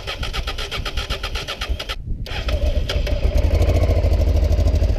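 Honda Africa Twin RD04 (XRV750 V-twin) motorcycle engine cranking over with rapid even pulses, pausing briefly about two seconds in, then catching and running steadily, louder from about three seconds. It starts after its failed fuel pump has been repaired.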